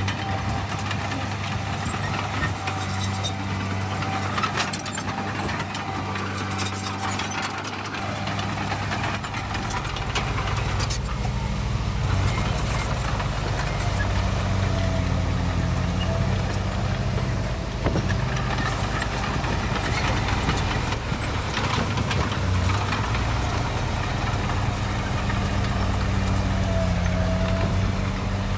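Heavy diesel engines of earthmoving machinery running steadily, a constant low drone that grows heavier about eight seconds in.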